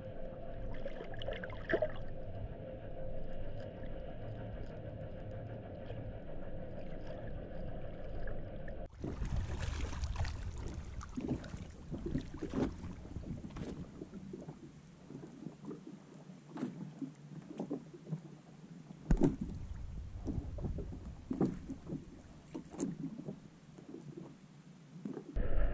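Muffled sound heard underwater, a steady hum with little treble. About nine seconds in it changes abruptly to water lapping and splashing at the surface, with irregular slaps and sloshes.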